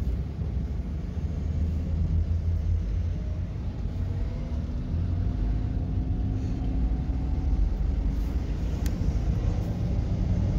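Car engine and road noise heard from inside the cabin: a steady low rumble, with a faint engine tone rising slowly in pitch from about four seconds in as the car pulls away with the traffic.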